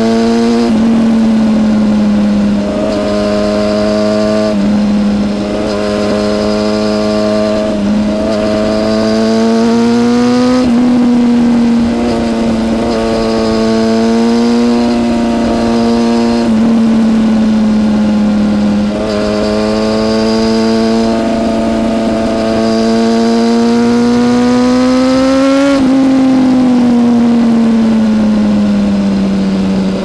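2013 BMW S1000RR's inline-four engine, de-catted with a Competition Werkes exhaust, heard from on board while riding. The note steps up and down repeatedly with the throttle and gear changes. Near the end it climbs to a peak and then falls away steadily.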